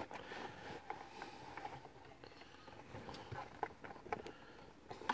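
Light taps and rustles of a cardboard retail box being handled as its inner tray is slid out of the outer sleeve: scattered faint clicks.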